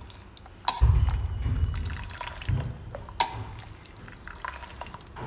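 Metal ladle scooping barley water in a pot and pouring it back, liquid splashing and dripping, with two sharp clinks of the ladle against the pot, about a second in and about three seconds in.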